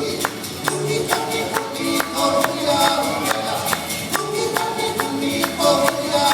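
Hawaiian hula 'auana song played live, a male voice singing over accompaniment, with the dancers' 'uli'uli feathered gourd rattles shaken together on the beat about twice a second.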